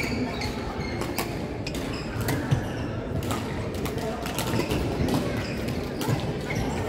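Badminton rallies on several courts: sharp racket hits on shuttlecocks scattered irregularly, short squeaks of court shoes on the wooden floor, and a hubbub of voices.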